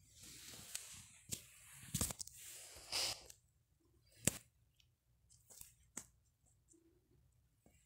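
Lined notebook paper rustling and crinkling as the pages are handled, for about three seconds, followed by a sharp click a little after four seconds in and a few fainter ticks.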